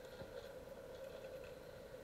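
Faint, steady hum of the Hammerhead Resort 30-inch battery-powered pool vacuum's electric motor running, with a few light ticks near the start.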